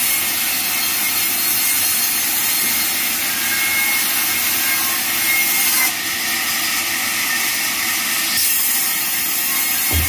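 Sawmill band saw cutting lengthwise through a log slab, a steady hiss of the blade in the wood with a faint thin whistle partway through. The sound shifts abruptly about six seconds in.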